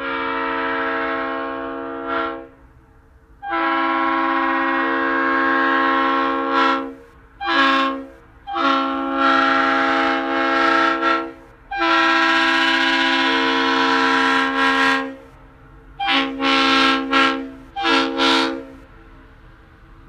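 1989 RSL3LRF multi-bell air horn sounding a steady chord in a series of about seven blasts. Most are held for two to three seconds, and the last few near the end are short and choppy.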